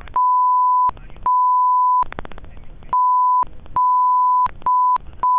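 Censor bleep: a steady, high, pure beep tone switched on six times in irregular lengths, blotting out a man's spoken answer when asked his name, with brief gaps of faint background sound between.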